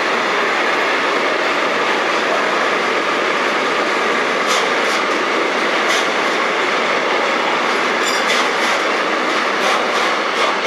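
Freight train of container wagons rolling past at speed: a steady rumble of steel wheels on the rails, with a string of sharp clicks in the second half as wheels pass over rail joints.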